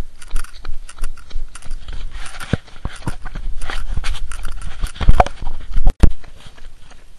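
A handheld camera's microphone knocked and rubbed as the camera is jostled against clothing: a run of irregular clicks and knocks, with the loudest thumps about five and six seconds in and a brief cut-out just before six seconds.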